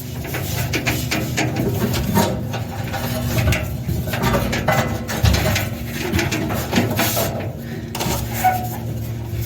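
Irregular clicks, knocks and rattles of a dryer's metal parts being handled as the drive belt is worked into place around the rollers.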